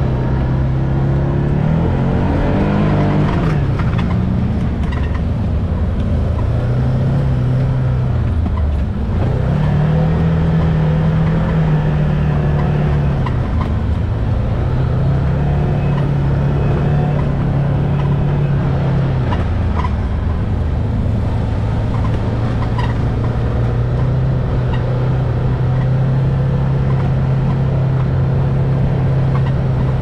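Can-Am Maverick X3 UTV engine running while driving, its pitch rising and falling again and again as the throttle opens and closes, over a steady rumble from the dirt trail.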